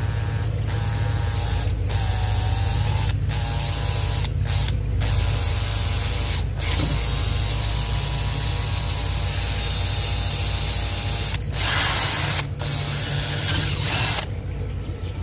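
Cordless drill running a 1/8-inch bit into an aluminium tube clamped in a vise, drilling a pilot hole. The motor whine is steady, with several brief dropouts and two short, louder hissing stretches near the end.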